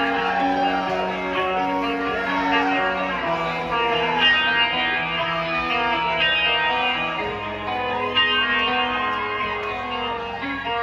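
Live rock band playing the slow intro of a ballad: an electric guitar through effects picks arpeggiated notes over held low notes that change every three to four seconds.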